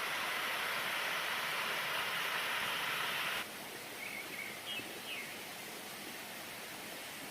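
Steady rushing of a stream and waterfall that drops abruptly to a quieter rush about halfway through, with a few short bird chirps after the drop.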